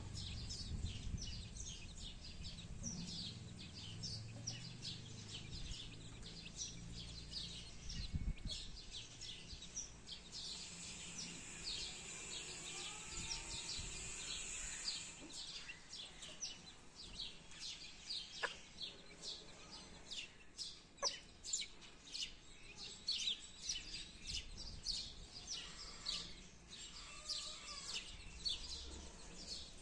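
Newborn chicks peeping: a steady stream of short, high-pitched calls, many overlapping, growing louder and busier in the second half, with the mother hen's soft clucks now and then.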